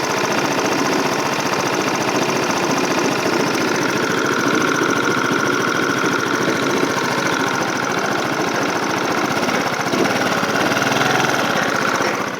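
Yamaha Cygnus X scooter's single-cylinder engine running with an abnormal noise, the unexplained fault the owner is recording. A steady high whine comes in about four seconds in and stays on over the engine noise.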